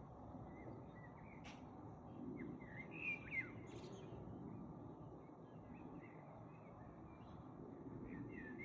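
Songbirds chirping faintly: short scattered calls and quick falling notes, with a louder cluster about three seconds in and more near the end, over a steady low background noise.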